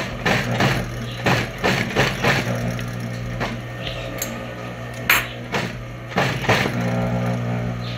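Industrial sewing machine at work: the motor hums steadily while the needle runs in short, irregular bursts of stitching as the seam is fed around a curve.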